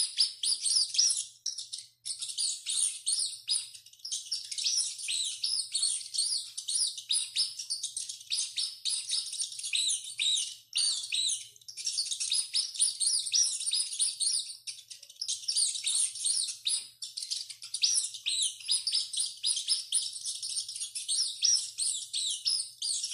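Rats squeaking: a dense, unbroken stream of short, high-pitched squeaks, many overlapping one another.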